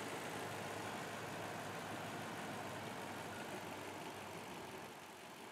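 2008 Toyota Tundra's 5.7-litre V8 idling steadily under the open hood, its K&N cold air intake drawing air; the sound grows a little quieter near the end.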